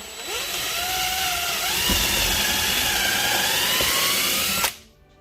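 Power drill boring into the wooden door jamb at the bracket's mounting holes, its motor whine wavering and slowly rising in pitch, then stopping abruptly near the end.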